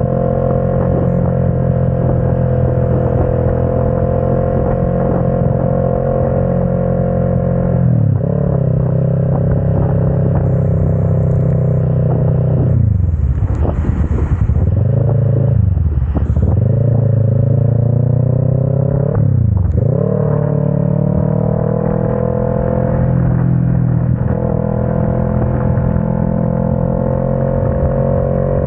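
Motorcycle engine running under way, with the revs dropping and climbing again several times through the middle as the rider shifts gears while accelerating.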